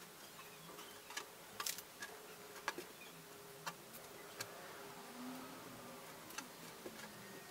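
Faint handling sounds of cut fabric pieces being laid out and smoothed on a wooden worktable: scattered light clicks and taps, about half a dozen, over a thin wavering buzz.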